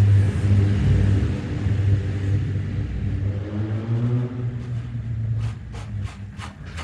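A low, steady motor rumble that rises slightly in pitch midway and fades near the end. A few light clicks and knocks of handling follow near the end.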